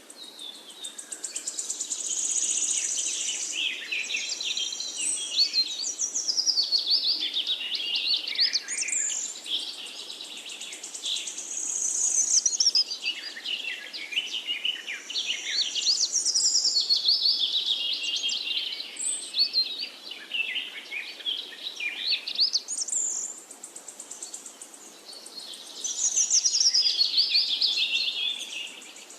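Forest songbirds singing: long, rapid, high-pitched phrases of sweeping and trilled notes, one following another every few seconds, over a faint steady background hiss.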